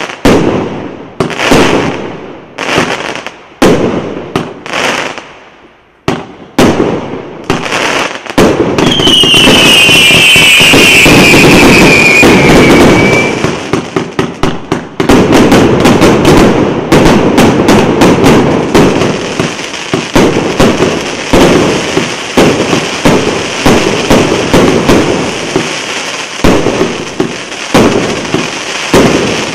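A 142-shot, 1.2-inch consumer fireworks cake firing. For about eight seconds there are separate shots and bursts, roughly one a second. Then comes about five seconds of continuous loud crackling with a falling whistle, followed by rapid-fire shots and bursts, several a second.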